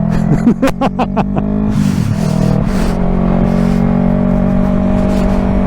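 Yamaha R3's parallel-twin engine running at a steady, even speed through an M4 Street Slayer aftermarket exhaust. A brief rush of wind noise comes about two seconds in.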